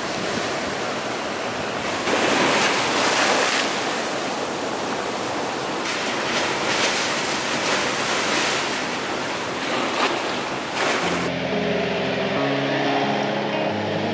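Ocean surf crashing and surging against the rusted steel hull of a shipwreck, with a big wave breaking about two seconds in and more surges later. About eleven seconds in, the surf cuts off and background music takes over.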